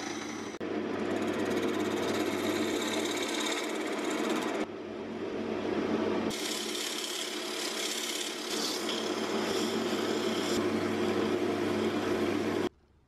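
Wood lathe running with a steady motor hum while a flat scraper cuts the spinning wooden blank, in several short edited takes; near the end sandpaper is held against the inside of the turning piece. The sound cuts off suddenly shortly before the end.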